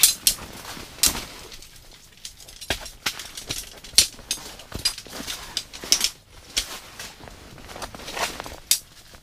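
Folding camp table's metal-tube frame being opened out by hand: an irregular string of clicks and clatters from its legs and joints, the loudest about four seconds in.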